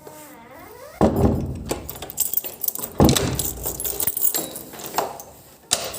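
Keys jangling and clinking, with two sharp knocks about a second in and about three seconds in.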